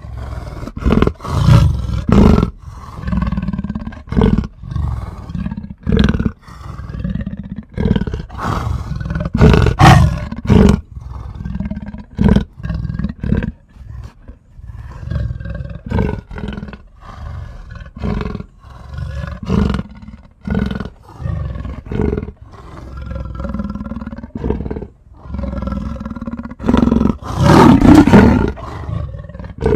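Angry wolf sound effect: a run of repeated, irregular growls and snarls in short loud bursts, the loudest and longest near the end.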